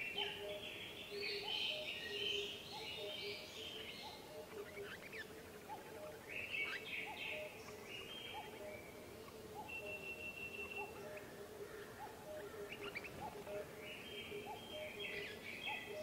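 Woodland birdsong: several birds chirping and trilling in bursts, with a brief held whistle about ten seconds in. Underneath, a steady series of short low notes repeats a little more than once a second.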